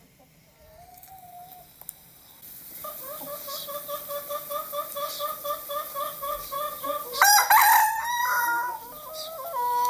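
Chickens clucking in a quick steady run, about four clucks a second, then a rooster crowing loudly about seven seconds in.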